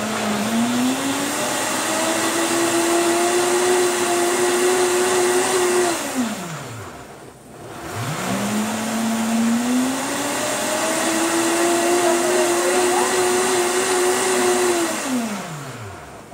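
Countertop blender blending cucumber and water in pulses. The motor spins up with a rising whine, runs steadily for about five seconds, then winds down and stops. It does this twice and starts up a third time right at the end.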